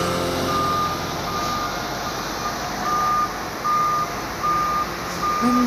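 A wheel loader's reversing alarm beeping at one steady pitch, about one beep every 0.8 seconds, over a background of machine rumble.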